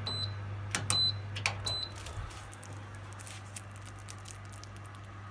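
Real Flame electric fireplace: its control panel beeps three times as buttons are pressed. A low hum stops about two seconds in, and faint, sparse crackling clicks of its built-in fire sound effect carry on.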